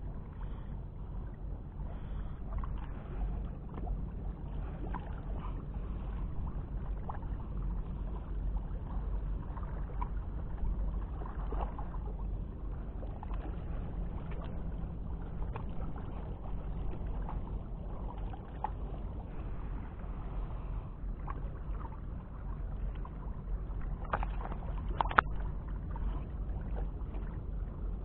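Steady low rumble of harbour background noise, with faint scattered handling clicks and two sharper knocks near the end.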